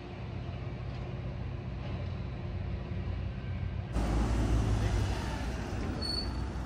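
A steady low hum with a few held tones, then a Nishitetsu city bus pulling up at a stop, its engine giving a louder low rumble from about four seconds in. A brief high squeal sounds near the end.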